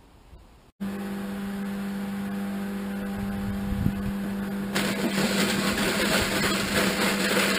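An electric apple mill starts just under a second in, its motor running with a steady hum. About five seconds in, a loud rough grinding joins the hum as apples are pulped.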